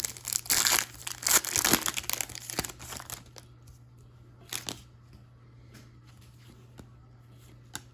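Crinkling and tearing of a baseball card pack's foil wrapper for about three seconds, then quieter handling with a single click about four and a half seconds in.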